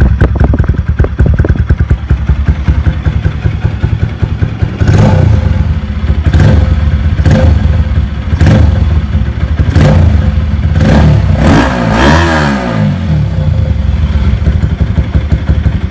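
Bajaj Pulsar NS200's single-cylinder engine idling through an aftermarket exhaust, then blipped about eight times in quick succession. One longer rev falls back in pitch to idle near the end.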